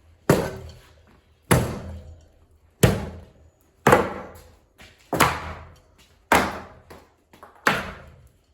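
Plastic blades of a slow-turning ceiling fan being whacked, a sharp clack about every second and a quarter, seven times, each ringing out briefly.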